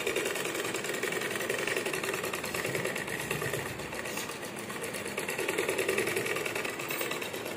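Sewing machine running steadily at a fast stitching rhythm. It is putting a second row of stitching along a pant seam to reinforce it.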